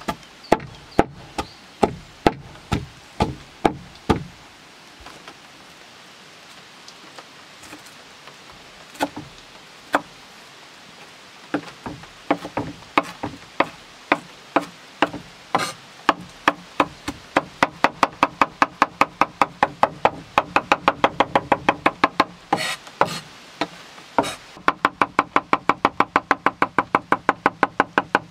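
Large chef's knife chopping on a wooden board. Evenly spaced knocks mincing garlic give way to a few single strokes. The knife then chops parsley in a fast, even rhythm of about five strokes a second, with a short break near the end.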